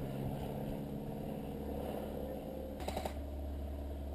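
A short burst of rapid clicking shots from an airsoft gun, about three seconds in, over a steady low rumble.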